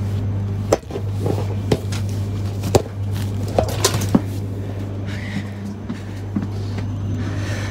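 Bags being stowed on a train's overhead luggage rack: several sharp knocks and bumps with rustling, mostly in the first four seconds, over a steady low hum.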